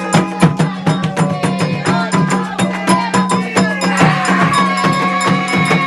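Candomblé ritual music: fast hand percussion with many sharp strokes a second, and sustained pitched tones, likely voices, held over it.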